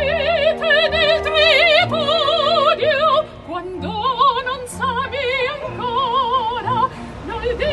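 Operatic singing: a voice holds long notes with a wide vibrato, in phrases broken by short pauses, over steady low held notes.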